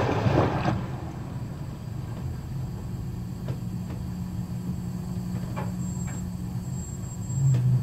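Rough sea from a ship: the rush of a breaking wave's spray dies away within the first second, then a steady low rumble with a few faint knocks.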